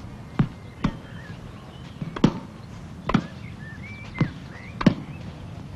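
A tennis ball being hit with a racket and bouncing on the court: six sharp pocks, unevenly spaced and loosely in pairs.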